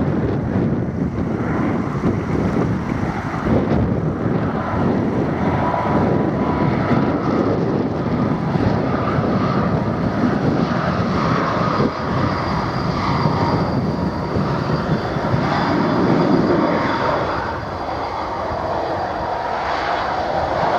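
Jet airliner engines running loud and steady, a thin high whine audible over the noise in the middle of the stretch, easing slightly near the end.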